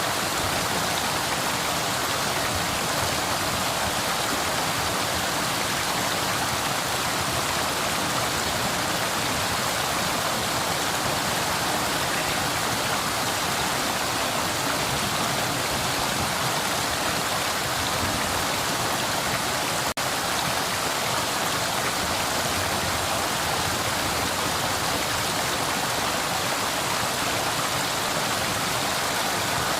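Flowing river, a steady even rush of water with no single splashes standing out. There is a split-second dropout about twenty seconds in.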